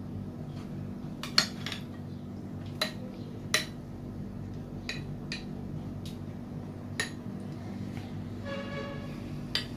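A metal spoon clinking against small glass dessert cups while thick set custard is spooned in. There are about seven sharp clinks, a few ringing briefly, the loudest about a second and a half in, over a steady low hum.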